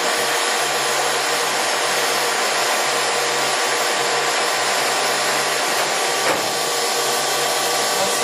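Warner & Swasey M4630 No. 3 ram-type turret lathe running under power, its geared headstock turning the spindle and 10-inch three-jaw chuck with a steady hum and whine. It sounds smooth and even, with one light knock about six seconds in.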